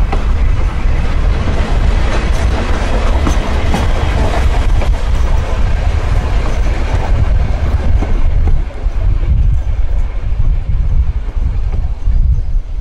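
Two-car historic electric tram rolling past on its track, wheels rumbling and clicking over the rail joints. It is loudest while passing close in the first half, and its higher running noise thins out as it moves away.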